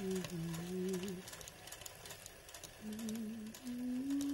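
A woman humming a tune in held notes, a few phrases about a second each, stepping up in pitch near the end, over the faint fast ticking of a sewing machine needle doing free-motion embroidery stitches.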